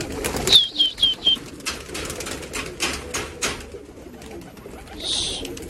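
Pigeons let out of their loft boxes, moving about and fluttering: scattered wing flaps and clicks, a quick run of four high falling chirps about half a second in, and a short rush of wing noise near the end.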